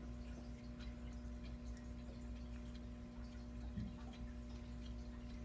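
Aquarium filter running: a steady electric hum with faint trickling and dripping of water. A single soft knock about four seconds in.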